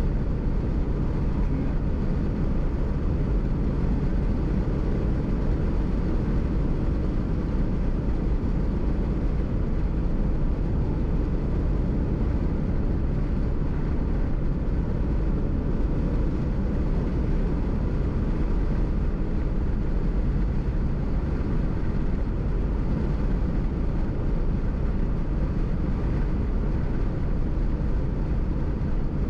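Car driving at a steady speed on a highway: an even, unbroken road and engine rumble.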